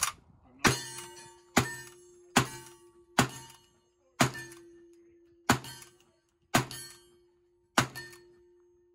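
1866 Yellowboy lever-action rifle firing black-powder cartridges: about eight shots at roughly one a second, each cracking out and trailing off in an echo. A faint steady tone rings on underneath the shots.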